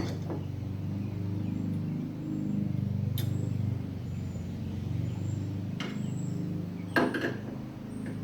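A few sharp metallic clicks and knocks from hand tools being handled on the car, the loudest cluster about seven seconds in, over a steady low hum.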